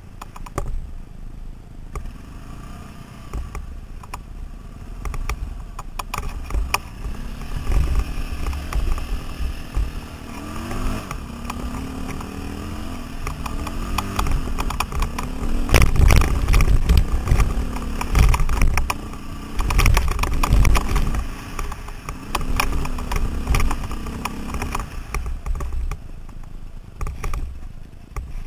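KTM 530 single-cylinder four-stroke dirt bike engine revving up and down as it is ridden over a rough off-road trail, with clattering knocks from the bike over the rocky ground. It is loudest about halfway through.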